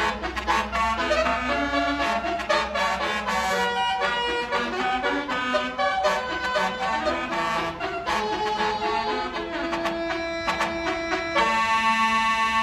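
Bus basuri telolet musical air horn playing a melody of short brassy notes with sharp clicks between them, ending on a long held note near the end.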